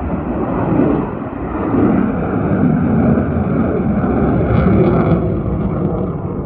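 Loud jet engine noise from an F-35 fighter in flight: a dense low rumble that swells and eases slightly and tails off a little near the end.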